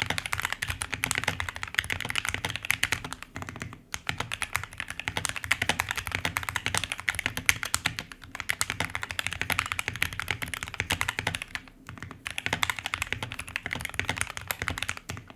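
Modded budget mechanical keyboard being typed on quickly: a dense, continuous run of keystrokes, with short pauses about four seconds and twelve seconds in.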